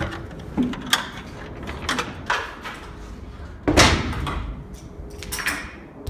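Metal clicks and clanks from a cargo net's fittings on its stainless steel cable being handled, with a louder scraping rattle of about half a second near four seconds in.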